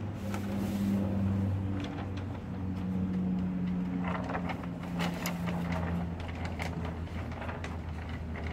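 Low, steady hum of a vehicle engine running, its pitch shifting slightly, with rustling and crinkling of weed barrier fabric being handled, busiest about four seconds in.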